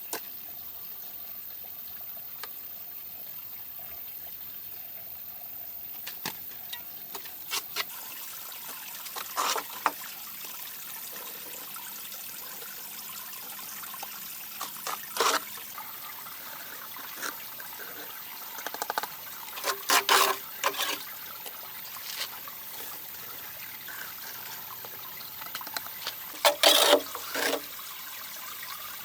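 Steady trickling water, with a few short, sharp louder noises now and then.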